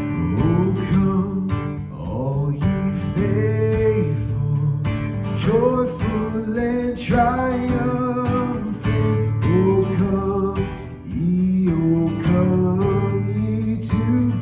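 Music led by strummed acoustic guitar, with a melody line that glides between notes over steady low notes.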